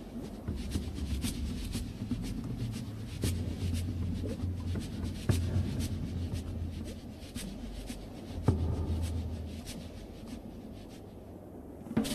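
Underwater ambience: a low steady rumble with scattered, irregular sharp clicks and ticks, growing sparser and quieter in the last couple of seconds.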